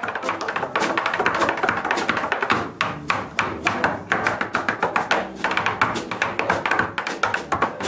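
Tap shoes rapping out fast, dense runs of taps on a wooden tap board.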